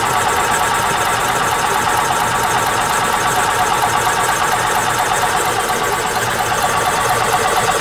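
Single-cylinder Robin 350 cc golf-cart engine cranking over steadily on its starter without firing, its spark plug replaced by a compression gauge for a compression test.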